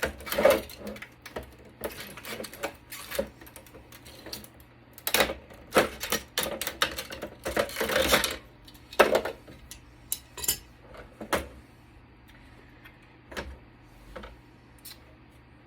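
Irregular metallic clicks, knocks and clatter as a network switch's sheet-metal chassis and parts are handled and pried apart with hand tools. It is busy through the first eleven seconds or so, then thins to a few scattered clicks.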